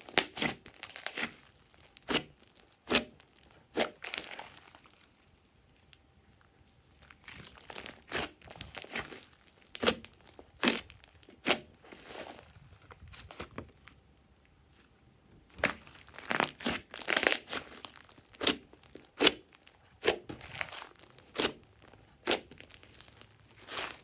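Hands kneading, squeezing and stretching a large mass of glossy slime: a run of sharp wet clicks and crackling pops, in clusters with quiet spells about five and fourteen seconds in.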